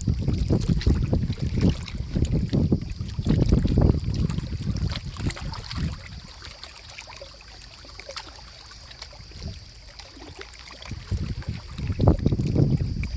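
Wind buffeting the microphone in gusts, with a faint steady high-pitched hiss and scattered light clicks; the rumble eases off about halfway through and rises again near the end.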